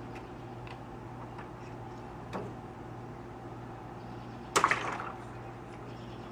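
A water balloon bursts once, about four and a half seconds in, with a sharp pop and a short splash of water, over a steady low hum. A faint click comes a couple of seconds earlier.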